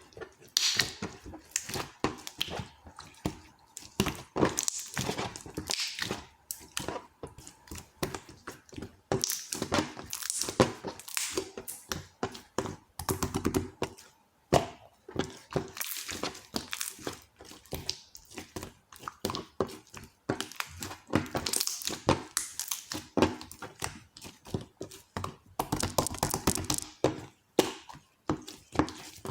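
Dense, irregular clicks, taps and knocks mixed with crinkling and rustling, as of small objects being handled close to the microphone.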